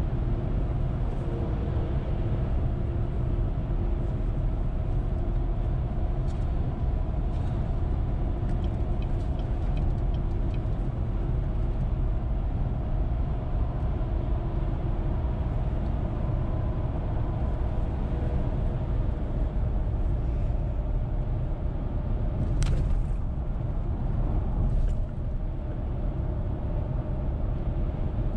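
Steady road and engine rumble of a car cruising on a highway, heard from inside the cabin. Two short clicks about two seconds apart come about three-quarters of the way through.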